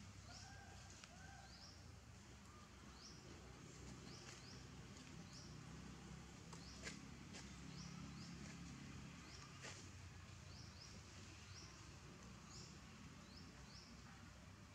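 Faint, high, short rising chirps of a small bird, repeated one or two a second and often in pairs, over a quiet outdoor background with a couple of faint clicks.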